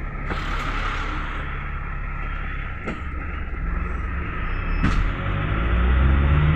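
Cabin noise of a GAZelle Next route minibus on the move: steady engine and road rumble with a few sharp knocks and rattles. In the last couple of seconds the engine note comes up and grows louder.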